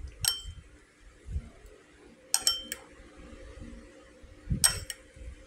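A metal spoon clinking against a bowl while mixing sauce into rice: one clink about a quarter-second in, three quick ones a little after two seconds, and two more near the end.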